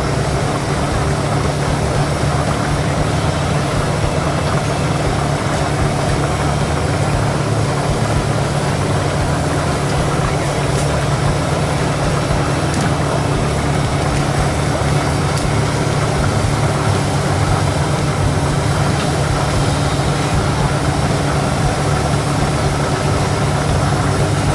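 A loud, steady mechanical drone with a low hum, unchanging throughout.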